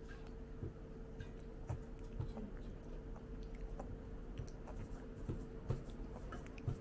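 Chewing food, with soft mouth clicks and smacks scattered irregularly over a faint steady hum.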